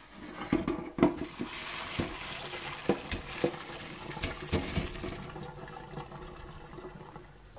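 Boiled cauliflower and hot water being poured from a pot into a stainless-steel colander in a sink. The water rushes and splashes through the mesh, with a few sharp knocks and clinks, then the rush fades near the end.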